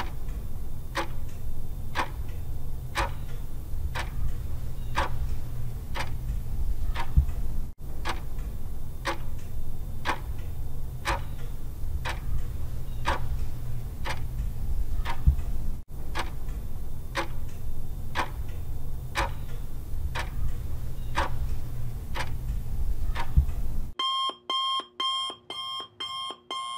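Countdown-timer sound effect: a clock ticking once a second over a low hum, then near the end it changes to rapid alarm-clock beeping as the timer runs out.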